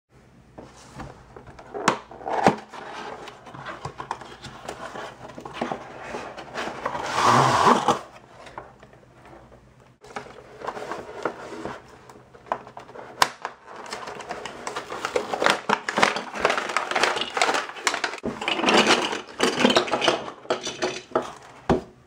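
Toy playset box being unpacked: a thin plastic blister tray crinkling and rustling as it is handled, with scattered clicks and knocks from the plastic toy fruit pieces. The rustling is loudest about seven seconds in.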